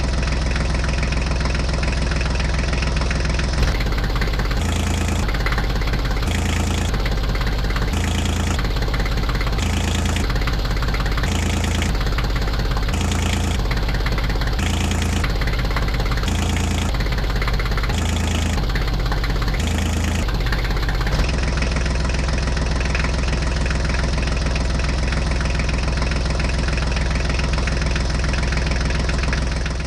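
A vehicle engine idling with a steady low chug. From about four seconds in until about twenty-one seconds in, a second engine layer pulses on and off roughly once a second, and the sound fades out at the very end.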